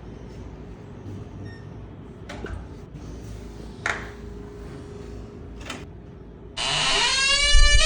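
Door creaking: after a few faint clicks over a low hum, a loud drawn-out creak with a falling pitch starts about six and a half seconds in.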